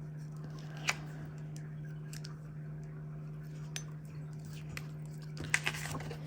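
Light snips and clicks of a paper sticker being cut out, with one sharp click about a second in and a short cluster of clicks near the end, over a steady low hum.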